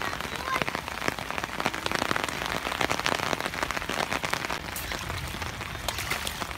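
Steady rain falling, a dense patter of drops on wet ground and puddles.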